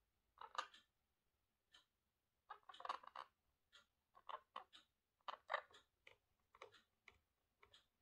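Small parrot chattering softly to itself: a string of short, quiet chirps, clicks and mumbled sounds in irregular clusters.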